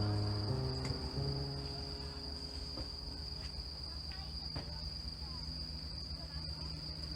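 Steady high-pitched chirring of crickets at night. A few notes of background music are heard in the first second or so, then fade out.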